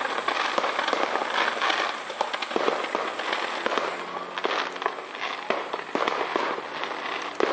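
Fireworks crackling in a dense, continuous run of sharp pops.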